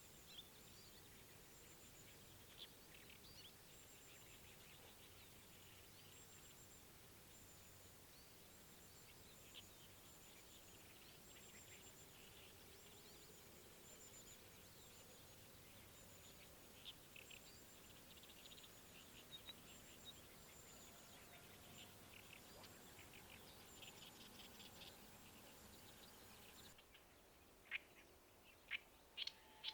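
Faint riverside ambience with scattered distant small-bird chirps and a thin, high repeated trill. A few sharper, louder bird chirps come near the end.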